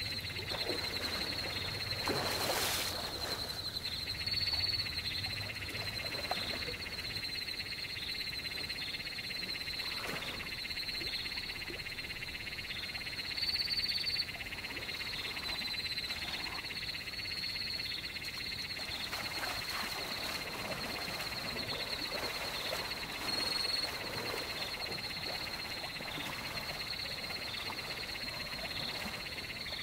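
Continuous chorus of frogs and insects: a rapid pulsing high trill over a steady high buzz, with a few louder calls standing out. A brief rushing noise about two seconds in.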